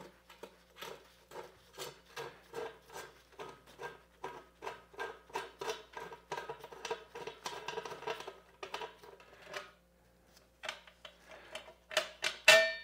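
Small metal parts clinking and scraping in a quick, uneven run of about two to three strikes a second, over a faint steady hum. The run pauses briefly near the end, followed by a louder ringing metallic clank.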